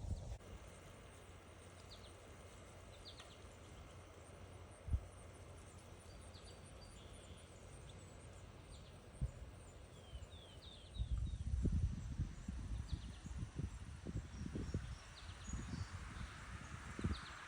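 Faint bird chirps, short high notes every second or so, over quiet outdoor ambience. From about halfway through come a string of low thumps and rumbles.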